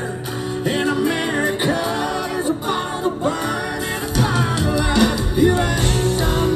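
Live country-rock band playing through a concert PA: drums, electric guitar and bass under a male lead vocal. The low end gets fuller and louder about four seconds in.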